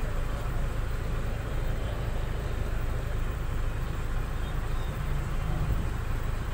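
Steady low rumble of a moving bus heard from inside the cabin: engine and tyre-on-road noise.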